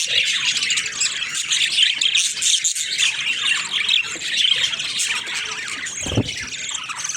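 Budgerigars chattering and squawking nonstop in a dense, overlapping flock chorus, with a dull thump about six seconds in.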